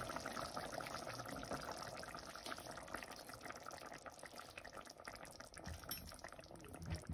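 Mackerel and cauliflower curry bubbling in a stainless steel pot, faint and steady with many small pops. Near the end there is a short knock.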